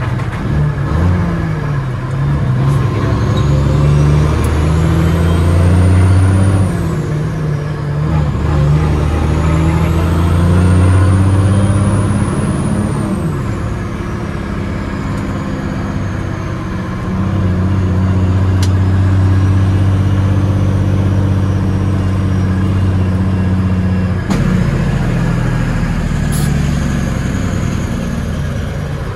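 Big cam Cummins diesel of a 1989 Peterbilt 379 pulling through the gears, heard from inside the cab. The engine note climbs and then drops several times as the 18-speed Eaton Fuller is shifted, with a high turbo whistle rising and falling along with it.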